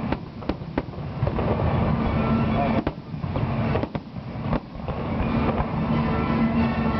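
Aerial fireworks shells bursting overhead: several sharp bangs over a continuous rumble of further bursts.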